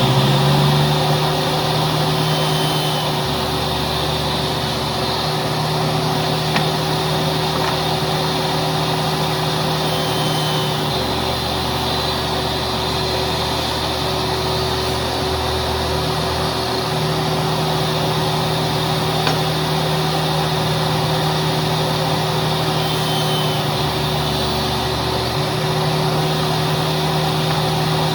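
An electric motor running steadily at full speed, a constant hum over a loud hiss, after spinning up just before.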